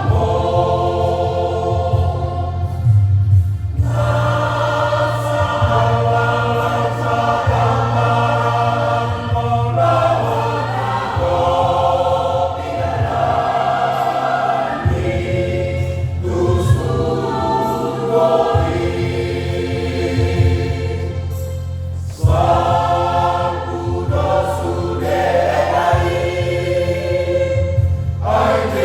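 A church choir singing an Indonesian hymn in phrases with short breaths between them, over sustained low bass notes.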